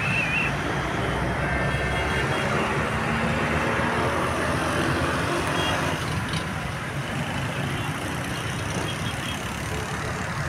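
Steady road traffic noise: the engines and tyres of passing cars and trucks, an even hum with no single vehicle standing out.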